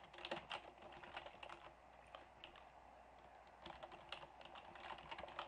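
Faint computer keyboard typing, quick irregular key clicks.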